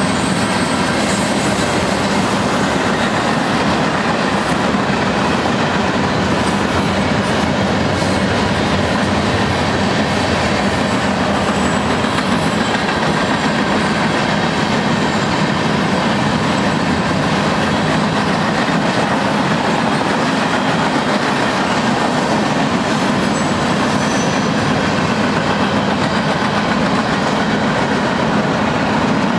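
A mixed manifest freight train's tank cars, autorack and covered hoppers rolling past, giving a steady, loud noise of steel wheels on rail.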